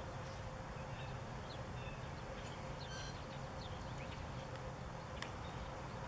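Honeybees flying at a hive entrance, a steady low hum, with a few faint short bird chirps.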